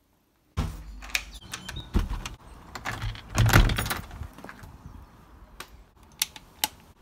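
A white uPVC door's lever handle being worked and the door opened: a string of handle and latch clicks and knocks. The loudest knock comes about three and a half seconds in, and a few sharp clicks follow near the end.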